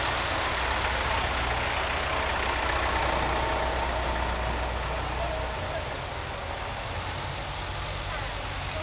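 Vintage tractor engines running at low speed as they pass close by, one after another, a steady low engine note that shifts about halfway through as the first tractor goes by and the next approaches.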